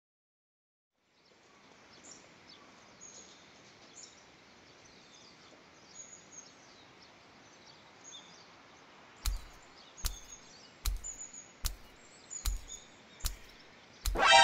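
Quiet outdoor background ambience with small birds chirping high and faint over a steady hiss, starting about a second in. From about nine seconds in comes a run of evenly spaced thumps, roughly one every 0.8 seconds, seven in all.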